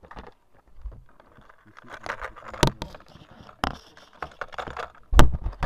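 Hands picking through a plastic lure box: lures and plastic rattling and clicking. There are sharp clicks about two and a half and three and a half seconds in, and a heavier knock about five seconds in.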